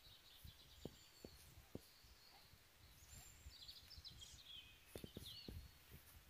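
Near silence: faint outdoor ambience with a few soft bird chirps in the second half and some light taps.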